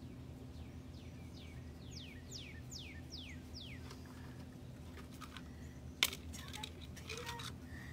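A bird singing a run of quick downward-slurred whistles, about three a second, for about two seconds. About six seconds in comes a sharp click, the loudest sound, followed by brief rustling, all over a steady low hum.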